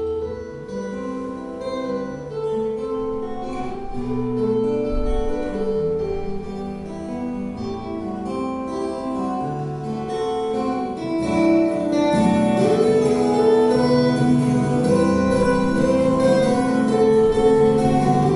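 Two acoustic guitars playing an instrumental duet live, one carrying a melody over the other's accompaniment, growing louder about twelve seconds in.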